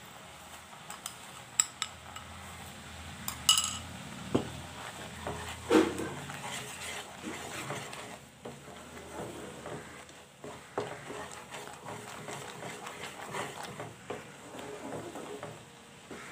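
A few sharp clinks in the first seconds as a spoon tips sugar from a glass bowl into the pan. Then a wooden spatula stirs and scrapes simmering rose apple jam in a nonstick kadai, with small knocks against the pan.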